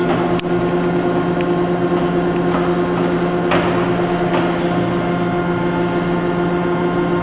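Hydraulic motor of a door frame clamp running with a steady hum while it applies clamping pressure, with a sharp click about half a second in.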